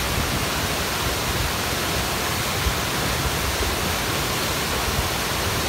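Flash-flood debris flow of muddy water, logs and branches rushing down a canyon wash: a loud, steady rushing noise with a low rumble underneath.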